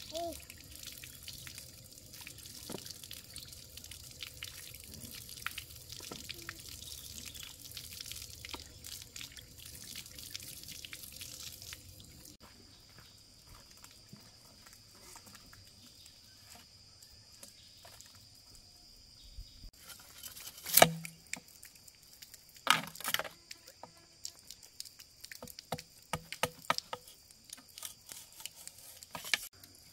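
Water running from a hose pipe and splashing onto a flat rock, a steady hiss that stops after about twelve seconds. After a quieter stretch come sharp knocks of a machete chopping bamboo: one loud blow, a second soon after, then a run of lighter ones near the end.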